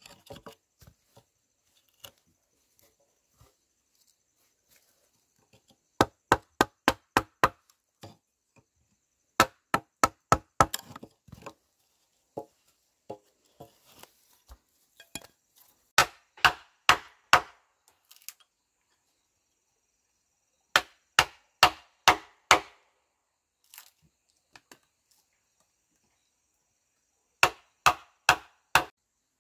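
Knife chopping on a wooden board in quick bursts of several rapid strokes, about five a second, with pauses of a few seconds between bursts.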